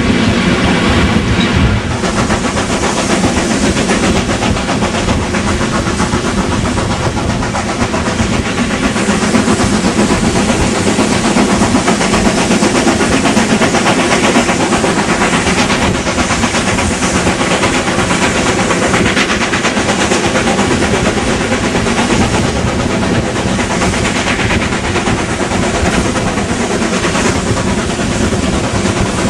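Rheingold train running steadily, a continuous loud rumble and wheel-on-rail noise.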